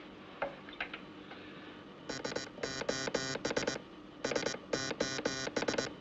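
Wireless telegraph Morse tone, buzzy and keyed on and off, sending SOS twice (three short, three long, three short), the international distress signal. It begins about two seconds in, after a few faint clicks.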